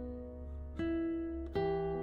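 Background music: an acoustic guitar playing chords, a new chord struck just under a second in and again about a second and a half in.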